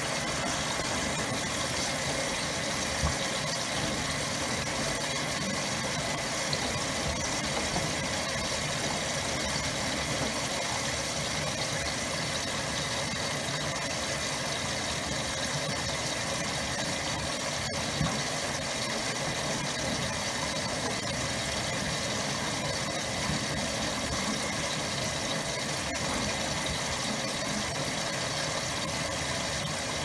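Maytag Commercial Technology front-load washer running with a load of plush toys in the drum: a steady, even machine hum with the drum turning. A couple of light knocks stand out, one a few seconds in and one about halfway through.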